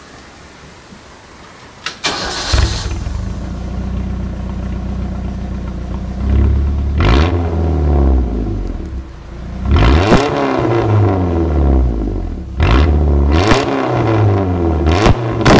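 1996 Chevrolet S-10 pickup's engine starting about two seconds in, then idling and being revved several times, heard through its home-built custom exhaust.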